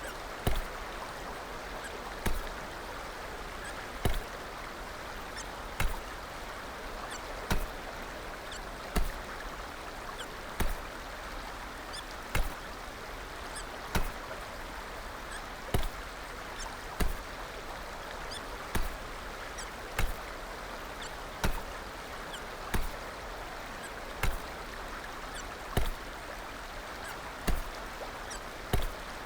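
Hiccups, one short sharp hiccup about every one and a half seconds in a steady run, over a steady background hiss.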